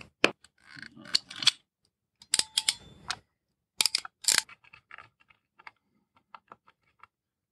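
A hand crimping tool clicking and rattling as it is squeezed shut on a wire end, with the loudest clicks about four seconds in. Light ticks follow as a small screwdriver works a screw terminal on the relay board.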